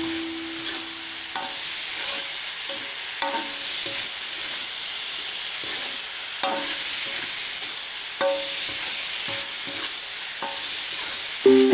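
Kikil (beef skin) and chillies sizzling steadily in hot oil in a metal wok. A metal spatula stirs them, scraping and clinking against the wok every second or two.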